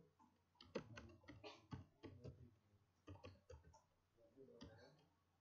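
Faint computer keyboard typing, keys tapped one at a time. There is a quick run of key clicks about a second in, another run around three seconds in, and a single click near the end.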